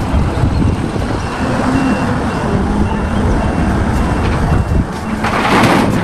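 Caterpillar wheel loader's diesel engine running, with a reversing alarm giving a row of short high beeps through the middle. Near the end, a bucketload of dark earth pours into a dump truck's bed with a rushing sound.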